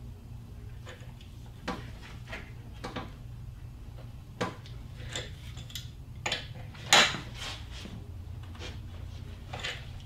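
Hand tools clinking and knocking against metal engine parts: irregular clicks and knocks, the loudest about seven seconds in, over a steady low hum.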